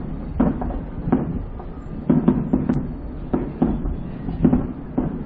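Aerial fireworks booming in a rapid, irregular series, about two or three dull bangs a second, each with a short rumbling tail.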